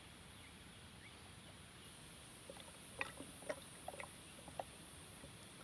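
Faint small splashes and drips of shallow water, a handful of short ones about halfway through, over a steady high insect hum.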